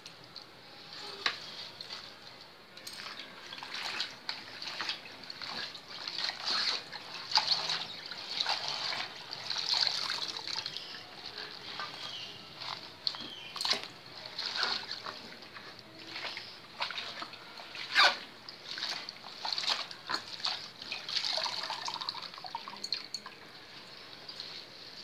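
Hands swishing leafy greens in a tub of water and lifting them out into a steel colander: irregular splashing and dripping, with a sharper splash about 18 seconds in.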